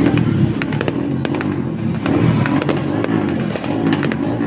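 Fireworks going off: a rapid scatter of sharp cracks and pops over a continuous low rumble.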